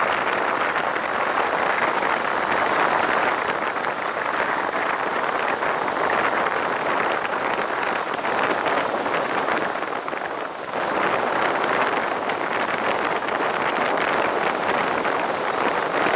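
Steady rush of wind over the microphone of a boat running across the lake, mixed with the noise of the hull and water, with a brief lull about ten seconds in.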